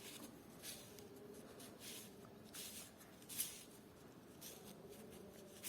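Near silence with a few faint, short scratching sounds, the clearest about three and a half seconds in.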